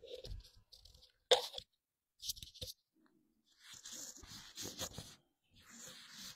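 Handling noise as the recording camera is picked up and moved: bursts of rustling and scraping close to the microphone, with one sharp knock about a second in.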